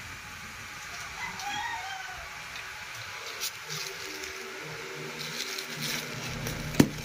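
The plastic bag and brown paper wrapping of a parcel rustle as hands handle it, with one sharp click near the end. A rooster crows once, about a second in.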